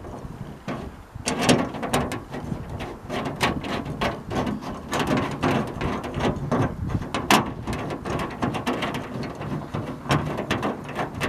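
Irregular light clicks, taps and rustles from a flat steel bracket being held and shifted against a van's sheet-metal rear door, over a low rumble.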